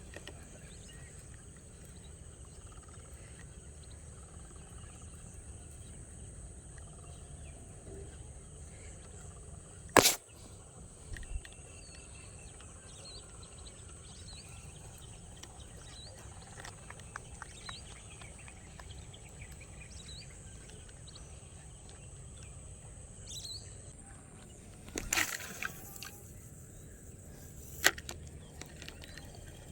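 Open-air ambience with faint, scattered bird chirps over a thin, steady high-pitched whine and a low background rumble. It is broken by a sharp click about a third of the way in, a short clatter of knocks later on, and another sharp click near the end.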